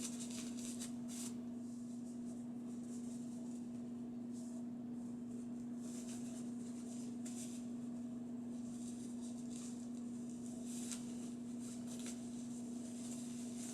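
Faint, scattered rustling and brushing as hands handle soft items, over a steady low hum.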